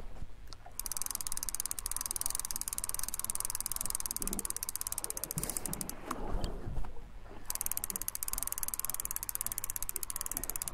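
Fishing reel being wound in, its gears giving a rapid, even ticking that stops briefly about seven and a half seconds in and then carries on; a small plaice is being reeled up.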